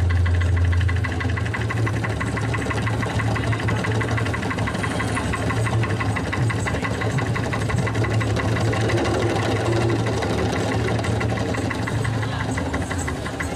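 A small engine running steadily, with a low hum and a fast, even beat. It is a little louder for the first second.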